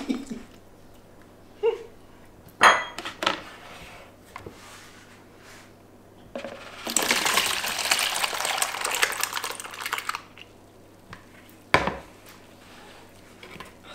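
A silicone spatula knocked a few times against a plastic tub, then a liquid fig-and-cream ice-cream mixture poured from a plastic bowl into the tub for about four seconds, and a single knock near the end.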